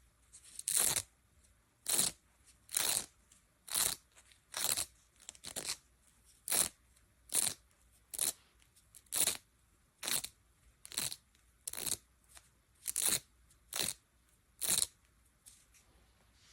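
A steady series of short crunching noises, about one a second, some sixteen in a row.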